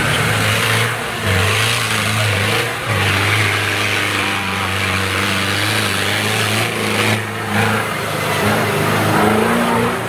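Trial 4x4 prototype's engine held at high revs while it claws up a steep muddy slope, tyres spinning in the mud. The engine note stays steady, dipping briefly a few times as the throttle comes off and back on.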